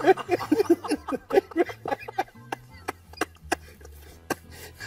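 Men laughing helplessly: short high giggles through about the first second, then fading to quieter, scattered breathy laughs and small clicks.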